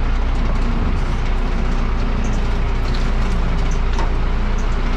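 A heavy engine running steadily at constant speed: a loud, even low drone.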